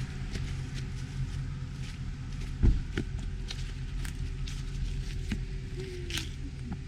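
Off-road vehicle engine running steadily at low revs, with scattered clicks and a single heavy thud a little under three seconds in.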